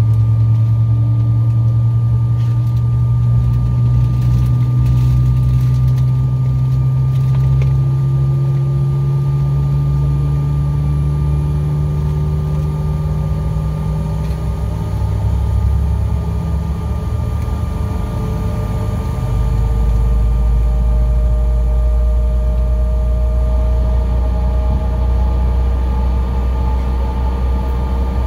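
Cabin sound of a Bombardier CRJ-700's rear-mounted turbofan engines running: a loud, steady drone with whining tones that slowly rise in pitch, and a deeper rumble that swells about two-thirds of the way through.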